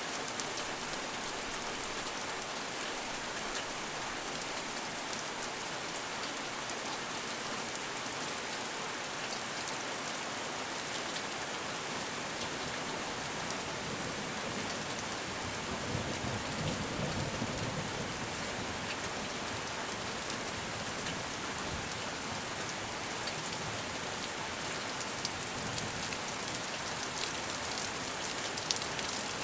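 Steady rain falling, a dense even hiss with fine patter of individual drops. About halfway through, a low rumble swells for a few seconds and fades.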